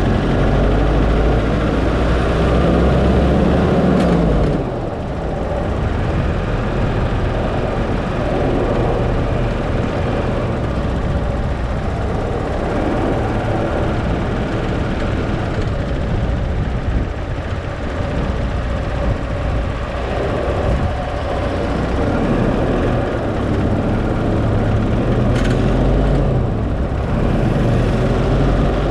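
A car driving: steady engine and road noise, dropping briefly about four and a half seconds in as the engine note falls, then picking up again.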